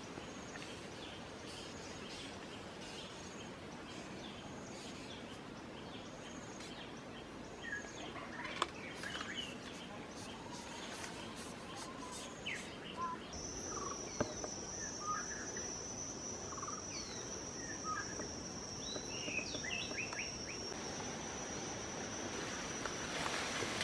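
Forest ambience: scattered bird chirps over a low background hiss. About halfway in, a steady high-pitched insect drone starts and holds.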